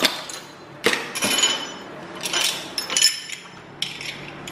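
Kitchen utensils clinking and rattling against each other as they are handled and moved about in a drawer, in several short bursts with a brief metallic ring.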